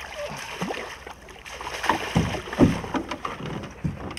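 Water splashing as a large zander thrashes in a landing net at the surface, with a few heavy knocks about two seconds in.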